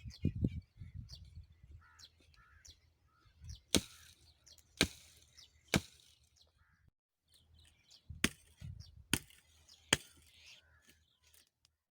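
Axe chopping into tree wood: sharp single strikes in two runs of three, about a second apart, with birds chirping faintly between them.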